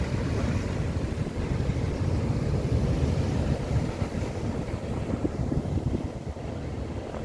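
Ocean surf breaking offshore and washing among the jetty's boulders, with wind buffeting the microphone as a low rumble. The surf swells about two to four seconds in and eases near the end.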